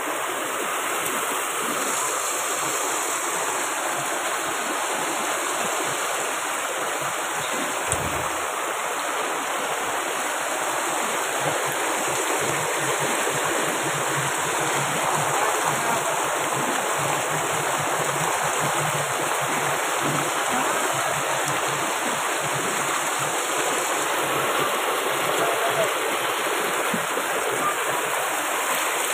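Steady rushing of floodwater flowing through a flooded lane, an even, unbroken wash of water noise.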